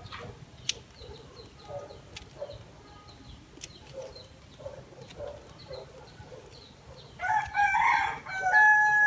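A rooster crowing loudly near the end, after a run of soft, regular clucks from chickens. A few sharp clicks from small pruning scissors snipping a bonsai's shoots sound in the first few seconds.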